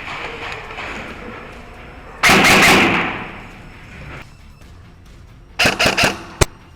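Airsoft electric gun (AEG) firing: a loud burst lasting under a second a little over two seconds in, then a quick string of about four shots near the end, followed by a single sharp crack.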